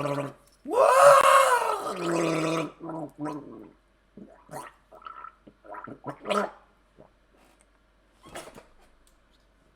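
A person's voice making a loud, drawn-out wordless vocal noise about a second in, rising then falling in pitch, followed by a few short, quieter sounds.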